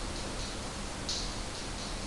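Wired terracotta-dish sound installation giving off short, soft, hissy high-pitched ticks that repeat about every one and a half seconds, each followed by a couple of fainter ticks, over a low steady hum.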